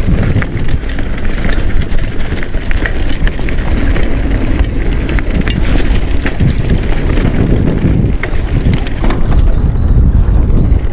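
Mountain bike riding fast along a dirt trail: wind buffeting the camera microphone with a constant low rumble, over tyre noise and frequent sharp clicks and rattles from the bike jolting over bumps.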